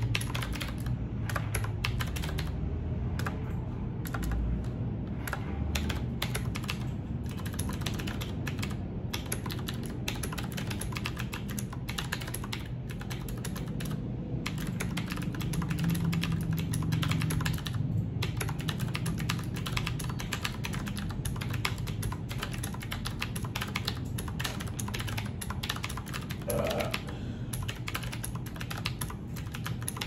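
Fast, continuous typing on a Qwerkywriter typewriter-style mechanical keyboard with round keycaps: a steady, dense stream of key clicks.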